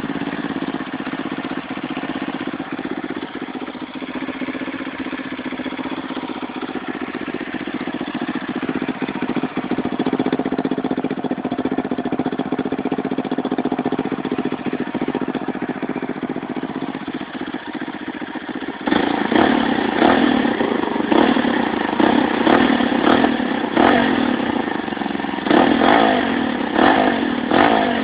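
Zipp Tracker 250 supermoto's single-cylinder four-stroke engine idling steadily through its exhaust. About two-thirds of the way in the throttle is opened, and the engine is blipped in a string of short revs.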